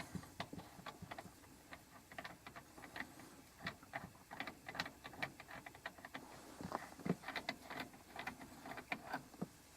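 Faint, irregular light clicks and taps, several a second, like small hard objects or tools being handled.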